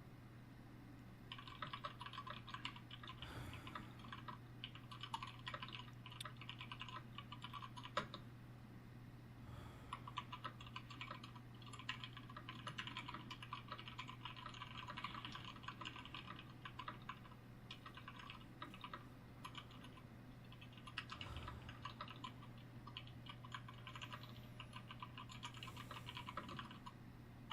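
Typing on a computer keyboard: quick runs of key clicks broken by pauses of a second or two, over a steady low hum.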